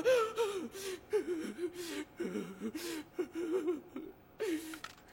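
A young man whimpering and gasping in fear: shaky, wavering sobbing breaths, broken by sharp intakes of air, fading out near the end.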